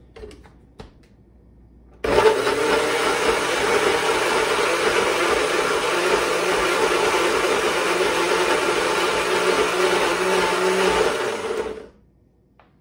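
Countertop blender switched on about two seconds in. It runs steadily for about ten seconds, chopping garlic cloves in olive oil into a paste, then is switched off. A few light clicks of the lid being fitted come first.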